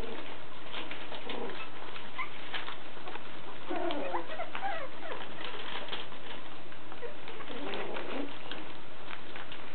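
Four-week-old Havanese puppies playing on newspaper: paws pattering and paper rustling throughout, with short wavering whines from the puppies, the clearest about four seconds in and again near eight seconds.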